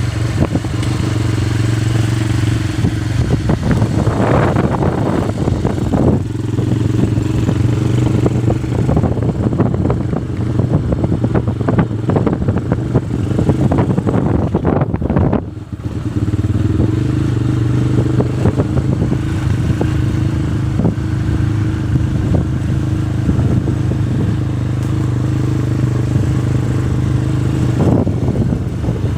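Motorcycle engine running steadily on the move, with road clatter and rattle over it. The sound drops briefly about halfway through.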